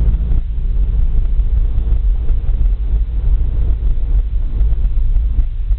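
Steady low rumble of engine and tyre noise heard inside the cabin of a moving Nissan Sentra.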